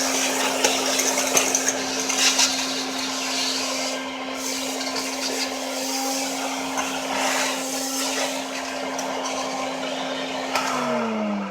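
Old vacuum cleaner running on a test run after repair, with a steady motor hum, the rush of suction and scattered clicks. Near the end it is switched off and the motor winds down, its pitch falling.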